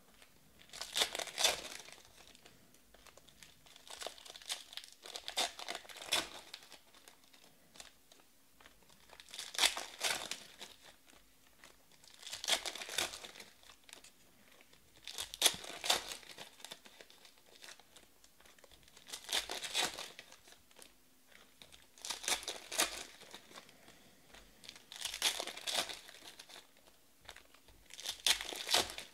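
Trading-card pack wrappers of 2020 Panini Select Baseball being torn open and crinkled, one pack after another, in short bursts roughly every three seconds.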